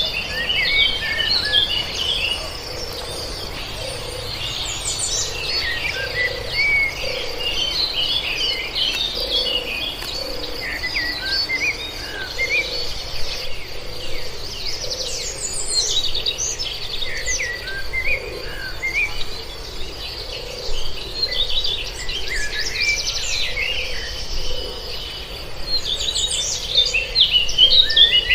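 Birds chirping and singing in busy flurries over a steady, high insect trill, with a soft low call repeating about once a second.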